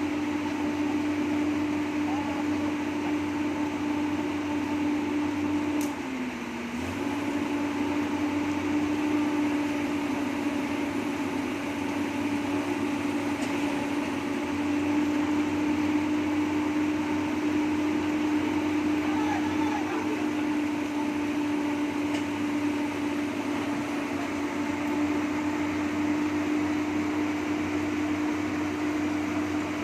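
Excavator's diesel engine running at a steady speed, its pitch dipping briefly about six seconds in.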